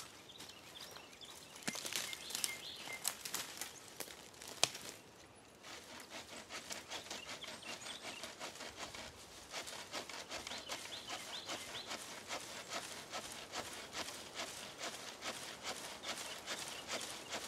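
Dry twigs and brush crackling and snapping as someone pushes through a dead thicket. From about six seconds in, a small hand saw cuts a dead branch in steady, even strokes, about four a second.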